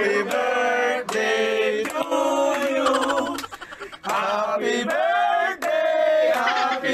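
Men's voices singing or chanting loudly in long held notes, broken into short phrases with a brief pause about three seconds in.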